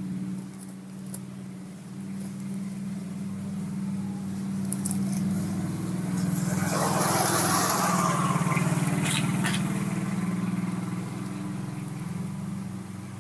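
A motor vehicle passing by, building to its loudest about seven seconds in and then fading, over a steady low hum.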